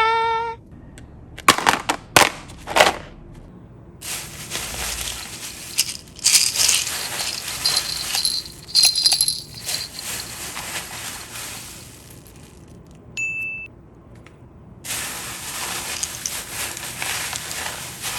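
Slime being squished and worked by hand, giving crackling, popping handling noise in long stretches, with a few sharp clicks early on. A short chime-like tone sounds at the very start and a brief high beep about 13 seconds in.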